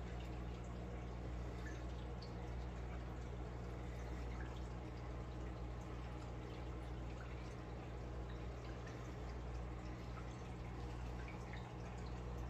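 Reef aquarium's running water and equipment: a steady low hum with faint trickling and scattered small drips.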